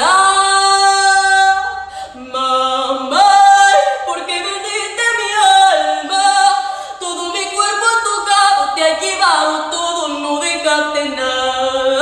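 A young girl singing a Spanish ballad without accompaniment, holding long notes and moving between them in steps.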